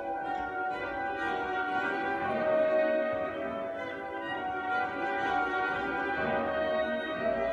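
Symphony orchestra playing classical music live, the bowed strings of violins and cellos holding long chords that shift slowly.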